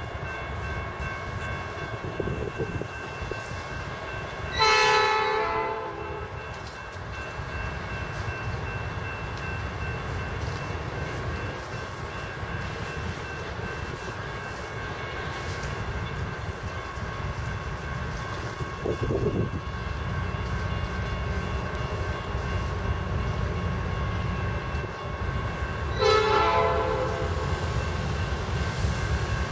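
Norfolk Southern diesel freight locomotive sounding its multi-note air horn: one short blast about five seconds in and a longer one starting near the end, over the steady low rumble of the passing freight train.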